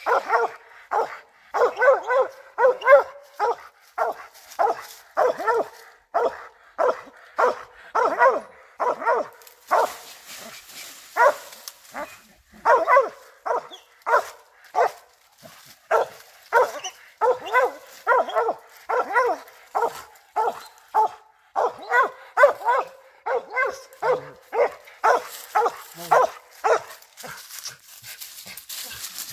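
Squirrel dog barking treed at the base of a tree, short barks about two a second with a few brief pauses, stopping near the end: the dog is holding a squirrel it has treed.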